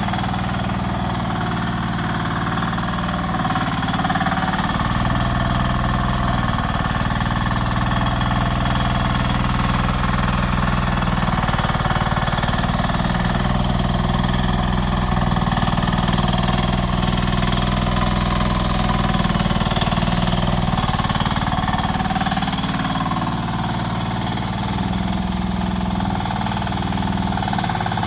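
Rippa R10 mini excavator's engine running steadily, its pitch shifting slightly up and down at times as the machine works.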